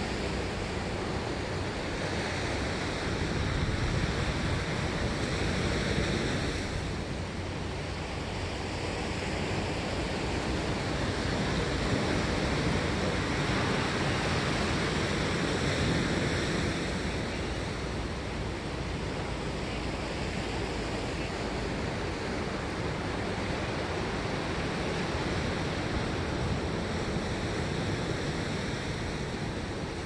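Ocean surf: waves breaking and washing ashore in a continuous rush that swells and eases every several seconds, louder around the middle.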